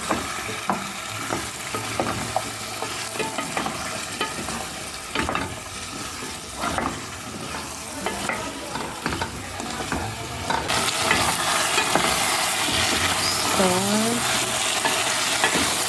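Potatoes and tomatoes being stirred in a frying pan: repeated scraping and clacking against the pan over a steady sizzle. The sizzle grows louder about eleven seconds in. The stirring keeps the potatoes from sticking to the pan.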